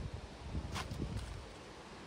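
Outdoor ambience with low rumbles of wind on the microphone and one sharp click a little under a second in.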